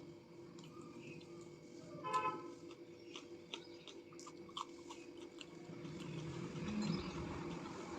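Close-up eating sounds: soft chewing and small mouth and lip clicks while eating rice, roti and jackfruit curry, over a steady low hum. A short toot of a vehicle horn sounds about two seconds in.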